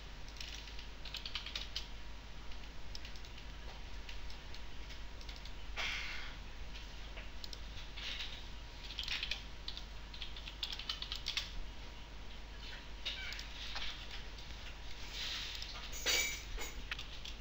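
Typing on a computer keyboard: irregular runs of quick key clicks, with one louder clack about sixteen seconds in.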